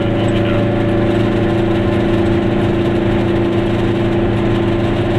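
Goggomobil's air-cooled two-stroke twin engine running steadily at an even pitch while cruising, heard from inside the car.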